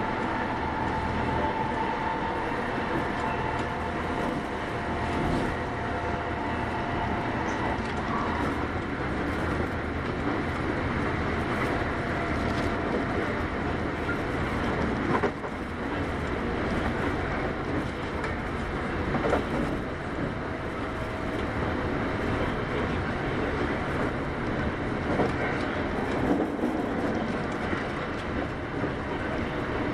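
Running noise of a Kintetsu 8810 series electric train at speed, heard from inside the car: a steady rumble of wheels on rail. A faint hum fades out about eight seconds in, and a few sharp knocks come through later.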